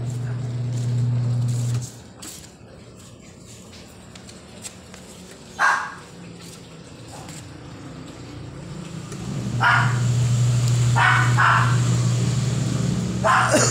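Twin-tub washing machine's wash motor humming steadily. It stops about two seconds in and starts again about nine seconds in. A dog barks several times: once sharply near the middle, then a few more times while the machine runs.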